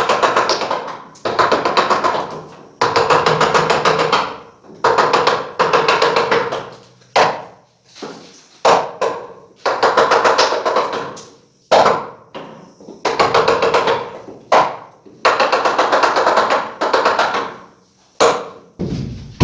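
Hammer tapping a steel chisel into the edge of a wooden door, in about a dozen quick bursts of rapid light blows with short pauses between, each burst carrying a ringing note: chiselling out a recess in the door edge.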